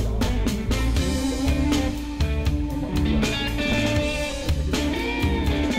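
Rock music with electric guitar and a drum kit keeping a steady beat.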